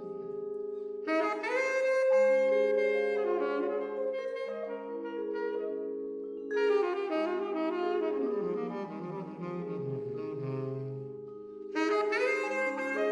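Saxophone and vibraphone duo playing a slow ballad: the saxophone enters with long-held phrases about a second in, again around the middle, and once more near the end, over ringing vibraphone chords.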